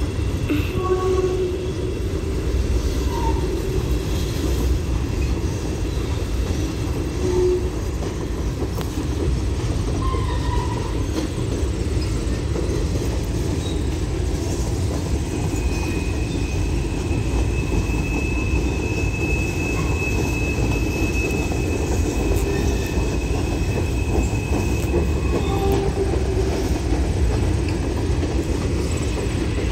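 Loaded Norfolk Southern coal hopper cars rolling past: a steady rumble of steel wheels on rail. Midway through, a high, steady wheel squeal is held for several seconds.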